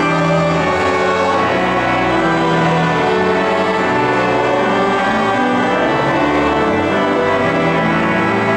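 Pipe organ playing slow, held chords.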